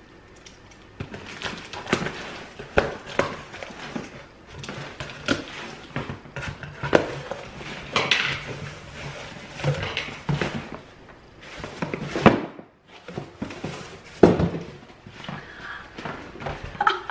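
Scissors slitting the packing tape on a cardboard shipping box, then the cardboard flaps and the packed boxes inside being opened and handled: a string of scrapes, taps and rustles of cardboard and tape.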